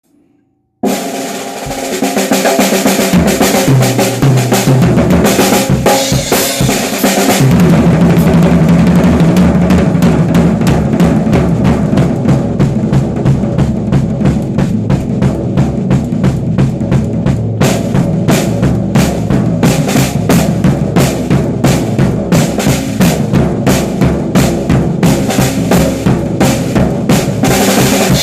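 Music led by a drum kit playing a steady beat, starting abruptly about a second in.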